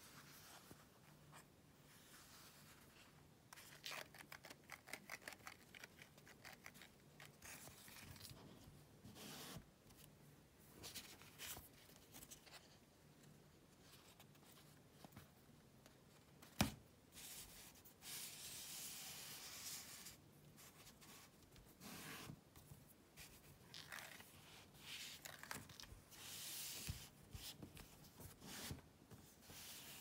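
Faint rustling, sliding and flexing of a paper pop-up card's card stock as it is handled, in irregular bursts, with a run of quick small clicks a few seconds in and one sharp tap about halfway through.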